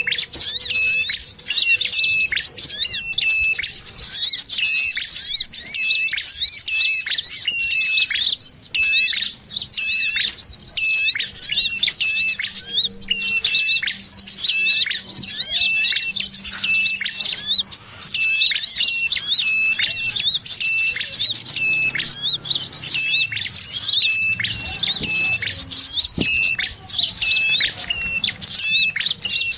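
Bird-lure recording of small songbirds' scolding chatter mixed with their calls, dense and unbroken, with a short high note repeating at an even rate the whole way through. It is a looped lure track for drawing wild small birds in.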